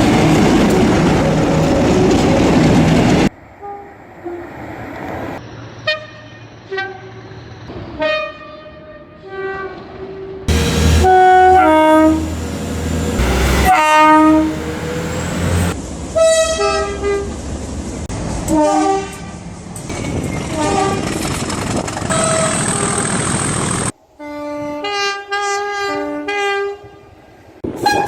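Train horns sounding in a series of short and long blasts, each blast a chord of several steady tones. Loud noise of a train rushing past fills the first three seconds and again the middle stretch, and the sound changes abruptly several times as one clip gives way to the next.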